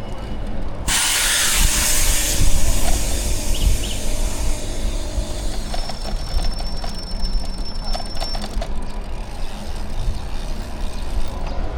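City street traffic heard from a moving bicycle, under a constant low rumble. About a second in, a sudden loud hiss starts and fades away over several seconds, and a thin high whine sounds through the middle.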